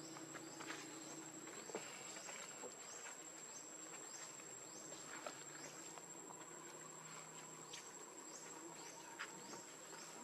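Faint insect chorus: a steady high-pitched whine with a rapid series of short rising chirps, about two a second, and a few soft clicks.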